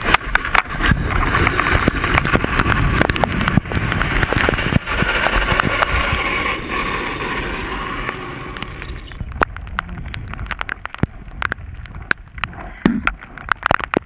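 A motorcycle sliding on its side down a wet road after a crash: a rush of wind and water spray with scraping, clicks and knocks. About nine seconds in the rush dies down, leaving scattered clicks and knocks.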